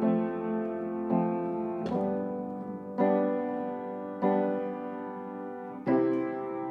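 Music: slow piano chords, about six in all, each struck and left to ring and fade, with no singing.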